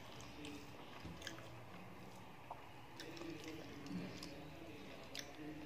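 Close-up mouth sounds of chewing a mouthful of rice and chicken curry, with scattered short, soft clicks of the mouth and fingers mixing rice on the plate.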